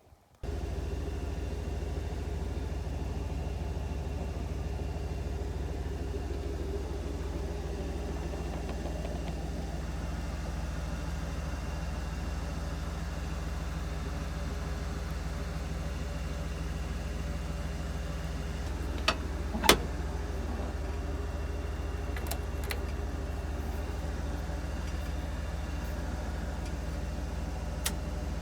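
Engine running steadily at an even speed, with a few sharp clicks about two-thirds of the way through.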